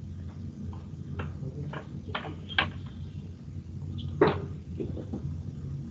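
Scattered faint clicks and short knocks over a low steady hum, with one louder knock about four seconds in.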